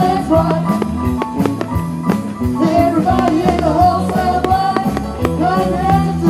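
Rock music with a steady drum beat, bass and a held melody line over it.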